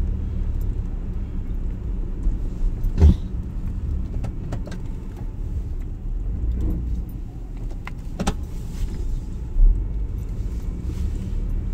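Chevrolet S-10 pickup's engine running steadily with a low rumble while plowing snow, with a few short clunks and knocks, the strongest about three seconds in and about eight seconds in.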